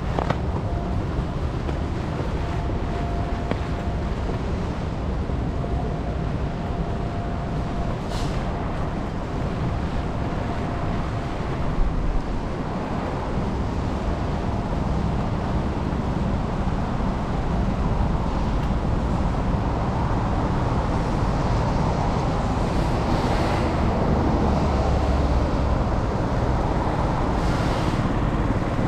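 Rainy city street: a steady wet hiss of rain and tyres on wet road with motor traffic passing, the traffic getting somewhat louder in the second half.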